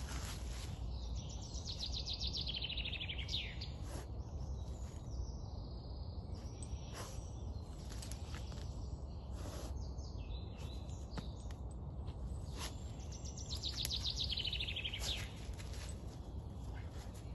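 A small songbird sings twice, each song a fast trill of about two seconds that falls steadily in pitch: once near the start and again about three-quarters of the way through. Underneath are scattered short scratches and rustles from a dog's paws digging in loose forest soil and dead leaves, over a steady low outdoor rumble.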